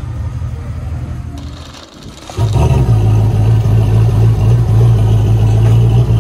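A car engine running with a steady low hum. It fades briefly, then about two and a half seconds in it comes up much louder and holds at an even, deep idle.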